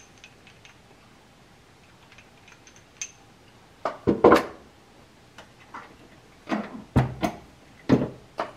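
Loaded 350 Legend cartridge and single-stage reloading press being handled: a faint click, then three clusters of short metallic clunks and knocks about four, six and a half and eight seconds in.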